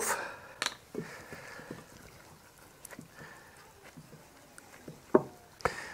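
A few light clicks and taps as a spice tin's lid is opened and set down on a wooden board, with faint handling noise between.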